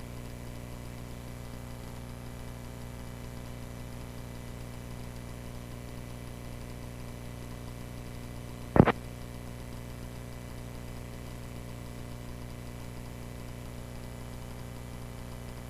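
Steady low hum of a light aircraft engine idling, heard through the recording feed, with one short loud crackle about nine seconds in.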